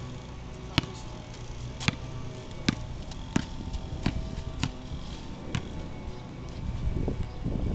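Basketball dribbled on pavement: sharp single bounces about once a second, around eight in all, stopping a little past the middle.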